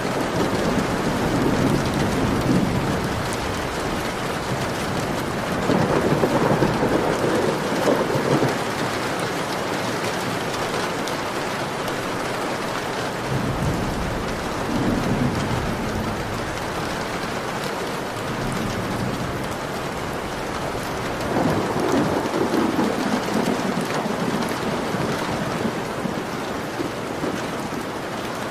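Heavy rain beating on a window glass as a dense, steady hiss. Four low rumbles swell up and fade over a few seconds each.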